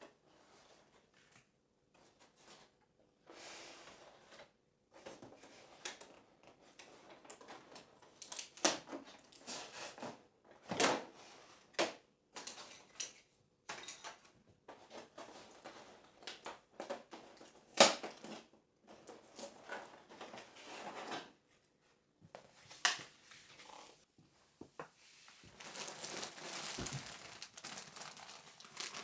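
Close-up handling sounds: scattered clicks, taps and light knocks with rustling between them, then a continuous stretch of crinkling, like paper or plastic being handled, near the end.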